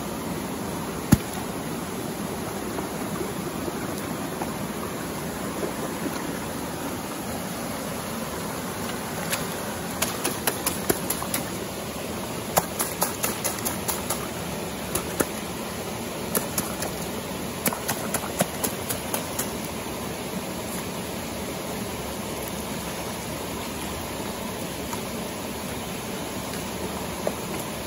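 River water flowing steadily. One sharp click about a second in, and a run of sharp clicks and taps from about ten to nineteen seconds in.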